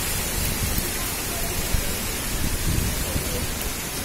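Cyclone wind and rain: a steady rushing of storm wind through trees, with uneven low gusts buffeting the phone's microphone and a brief heavier thump about halfway through.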